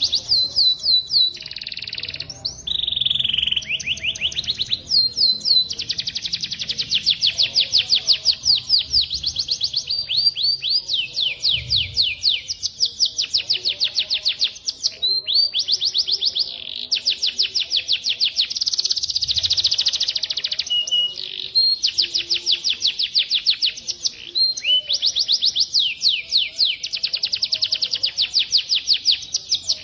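Songbird song from a masteran training recording: long, high-pitched trills of rapid downward-sweeping whistled notes, several a second, run together in phrases broken by brief pauses.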